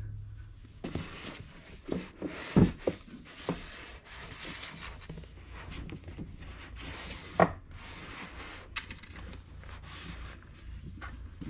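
Paperback manga volumes being slid, pushed and straightened along an IKEA Billy bookcase shelf: books rubbing against each other and the shelf, with scattered knocks, the loudest a little over two seconds in and again about seven seconds in.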